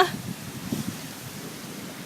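Steady rushing noise of a thunderstorm's wind and rain.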